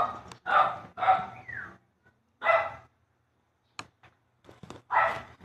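A dog barking, five loud barks spaced unevenly over the few seconds, with a gap of about two seconds before the last.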